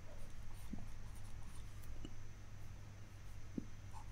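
Faint scratching and small taps of a stylus writing on a tablet, over a low steady hum.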